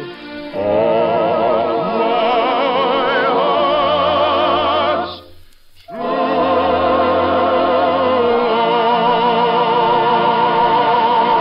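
Operatic singing with orchestra, the voice in wide vibrato. The music breaks off for a moment about five seconds in, then resumes and builds to a long held high note near the end.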